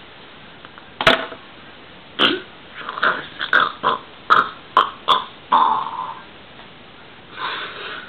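A man's mock sobbing: a string of about ten short, choppy sobs and gasps, one drawn out a little longer just past the middle.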